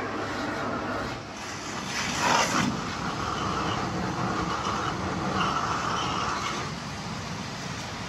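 Portable pressure washer running, its water jet spraying against the fins and coil of a window air conditioner in a steady hiss, briefly louder about two seconds in.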